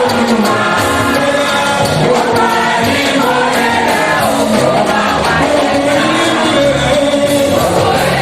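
A choir singing a gospel song with instrumental accompaniment.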